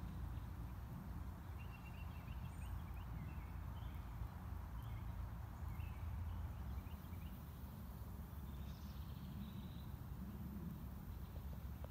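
Outdoor background: a steady low rumble, with birds chirping now and then, in short scattered calls.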